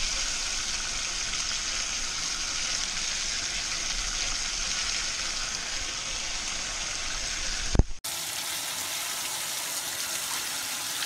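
Fresh cusk fillets frying in oil in a pan on a dual-fuel camp stove, a steady sizzle. Near the end comes a single sharp knock, then the sound cuts out for an instant and the sizzle resumes.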